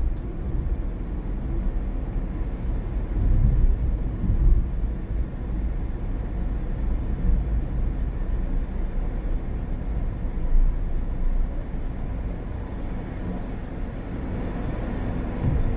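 Car driving along a road: a steady low rumble of road and engine noise, with a hiss that swells near the end.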